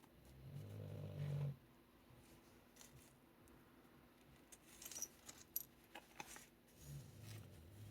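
A dog snoring: one low snore of about a second near the start, and another beginning near the end. In between come a few light clicks and rattles.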